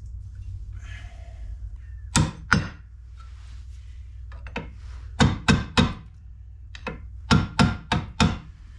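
Sharp metal-on-metal strikes: about nine blows in three bursts, two, then three, then four, each ringing briefly, as a new wheel stud is worked into the Chevy Impala's wheel hub.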